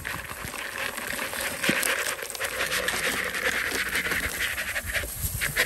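Oreo cookies being crushed by hand: a continuous irregular crunching and rustling made of many small crackles.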